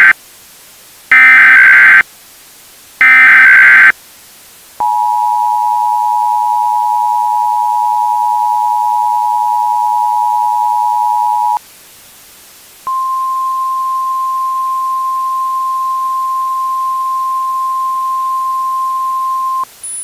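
Emergency Alert System tones: three short screeching SAME header data squawks about a second apart, then the two-tone EAS attention signal held for about seven seconds. After a short gap comes a single steady alert tone, the NOAA Weather Radio warning tone, lasting about seven seconds.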